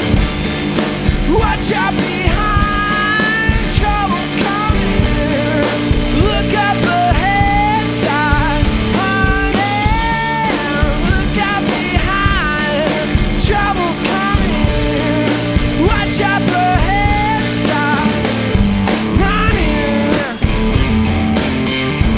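A two-piece rock band playing live: electric guitar and drum kit, with a sung lead vocal over them.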